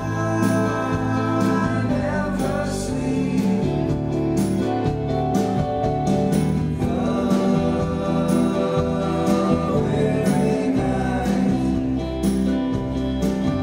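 Live rock band playing a song: a man's voice singing in long held notes over a played electric bass guitar and a steady beat.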